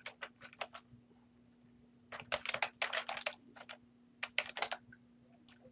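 Typing on a computer keyboard: quick runs of key clicks, one in the first second, a longer run about two seconds in, and a short run just after four seconds.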